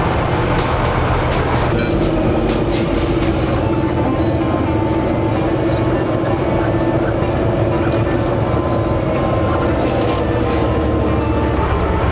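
Heavy tow truck's diesel engine running steadily at low speed, heard from the cab, with a steady whine joining in about two seconds in.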